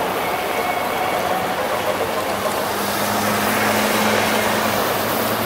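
Street traffic noise, with a minibus driving past close by: its engine hum grows louder from about two seconds in and is loudest near four seconds.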